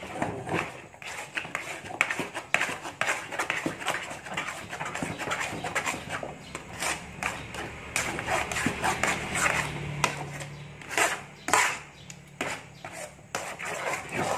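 Metal spatula stirring and folding thick, fully cooked nagasari pandan dough in a non-stick wok: irregular scrapes against the pan and sticky, squelching slaps of the dough.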